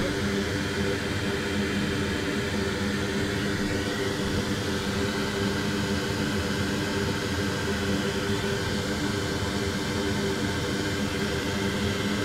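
Steady fan whir with a constant low hum, unchanging throughout.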